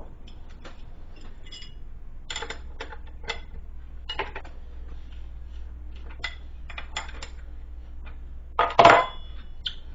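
Steel wrench clinking and tapping against the bench grinder's arbor nut and shaft as the nut is worked loose to take off the grinding stone. There are scattered light clicks and a louder metallic clank near the end.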